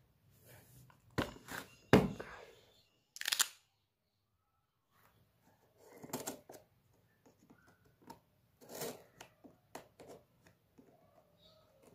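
Cardboard box being handled and slit open with a utility knife: a few sharp knocks and a scratchy rip about two to three seconds in, the loudest knock about two seconds in, then after a short pause a run of scraping and small clicks as the blade cuts along the box's flap.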